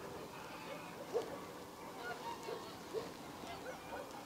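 Faint bird calls: several short, rising notes scattered over a quiet outdoor background.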